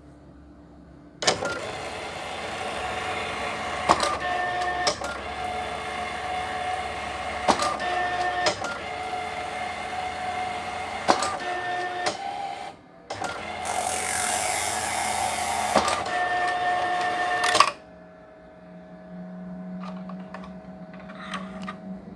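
DataCard SD260L dye-sublimation ID card printer running a print job: a steady mechanical whirr with a sharp click about every three and a half seconds. There is a brief pause partway, then a hissier stretch. The running cuts off sharply near the end, leaving a fainter hum.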